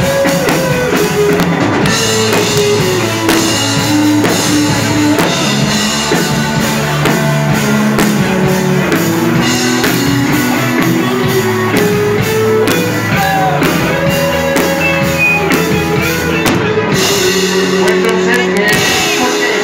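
Rock band playing live: electric guitars over a drum kit, loud and steady.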